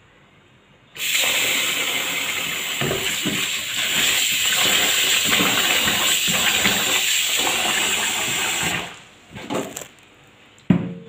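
Kitchen tap running water into a plastic bowl of rice in a stainless steel sink, filling it to soak the rice while a hand stirs the grains. The water is turned on about a second in and cuts off about two seconds before the end, followed by a couple of sharp knocks.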